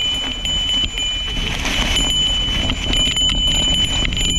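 A small bell jangling continuously while being shaken on a mountain bike ride. Its high ringing tone is re-struck over and over by the bumps of the trail. Underneath is a steady low rumble of wind and riding noise.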